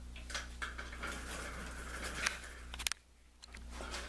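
Rustling and a few sharp clicks from objects being handled, over a steady low electrical hum. Everything cuts out abruptly for about half a second about three seconds in, then the hum returns.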